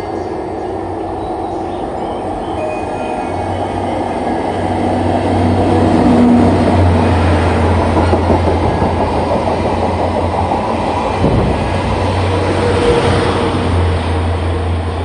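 Locomotive-hauled train of 12-series passenger coaches rolling past along the platform, its wheels running on the rails. The noise is loudest about six to eight seconds in, as the coaches pass close by.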